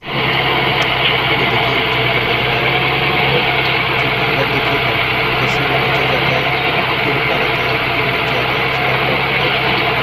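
Engine of a DMC (direct mud circulation) pile-boring rig's winch unit running steadily, driving its belts and flywheels, with a constant low hum throughout.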